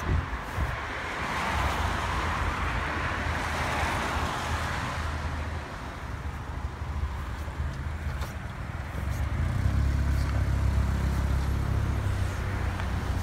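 Road traffic going by on wet pavement: a swell of tyre hiss in the first few seconds, then a deeper, louder rumble from about ten seconds in.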